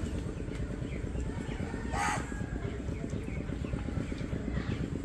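A single short crow caw about two seconds in, over a steady low outdoor rumble.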